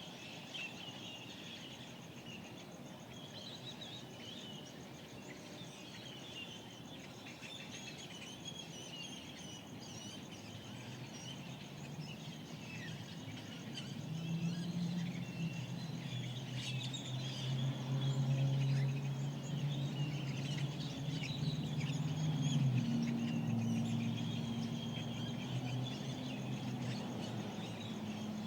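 Dawn chorus of desert birds: many short chirps and calls overlapping, with a faint steady high buzz underneath. About halfway through, a low steady hum swells in and becomes the loudest sound.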